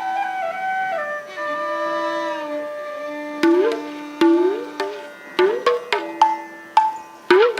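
Indian classical music: a flute melody over sustained accompaniment, then from about three seconds in a hand drum joins with sharp strokes and deep notes that bend upward in pitch.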